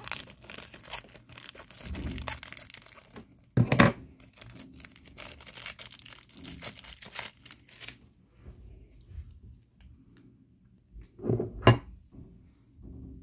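Thin clear plastic wrapping rustling and crinkling as it is pulled off a model airplane, with a loud burst near 4 seconds. It goes quiet after about 8 seconds, then two short knocks come close together near the end.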